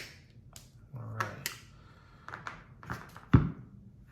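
Steel long nose pliers being handled: a string of sharp clicks and small knocks, with a heavier thump about three and a half seconds in.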